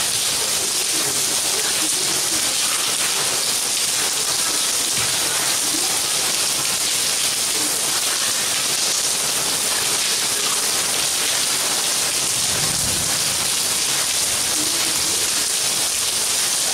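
Steady rain falling on a paved courtyard: an even, unbroken hiss, with a brief low rumble about three-quarters of the way through.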